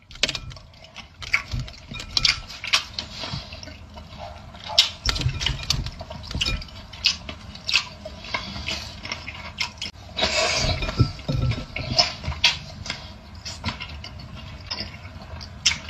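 A person eating a mouthful of grapes: wet chewing and mouth sounds with many irregular clicks, busiest about two-thirds of the way through.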